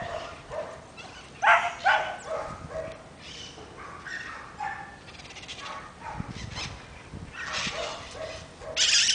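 A dog barking and yipping in a series of short calls, the loudest two about one and a half and two seconds in.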